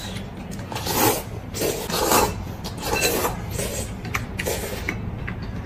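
Two people slurping noodles from bowls of broth, with several loud, rasping slurps coming about one a second.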